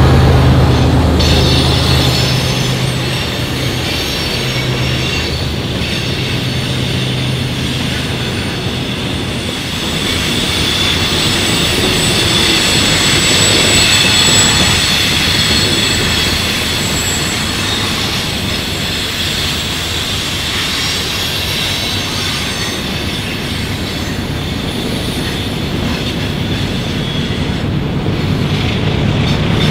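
Canadian Pacific freight train of covered grain hopper cars rolling through a curve, its steel wheels squealing against the rail in a high whine that is strongest around the middle. A low diesel locomotive drone fades over the first couple of seconds and grows louder again near the end as a mid-train locomotive comes close.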